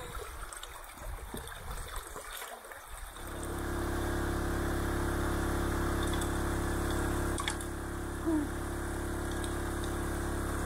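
Creek water splashing as a gold pan is worked in the shallows. About three seconds in, it gives way to the steady running of a small engine-driven water pump that feeds a sluice box through a hose, with water rushing beneath it.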